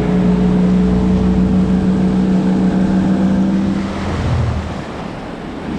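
Boat's outboard motor running at a steady pitch, then throttled down about four seconds in, the pitch dropping and the sound easing off.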